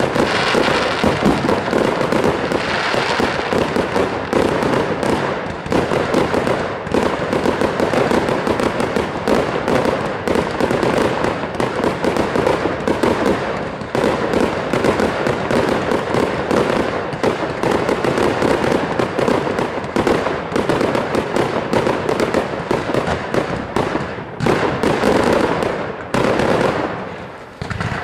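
Aerial fireworks firing in rapid succession: a dense, continuous run of launch thumps and bursts that dips briefly near the end, then picks up again.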